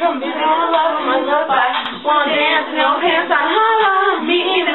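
Girls' voices singing, the melody rising and falling.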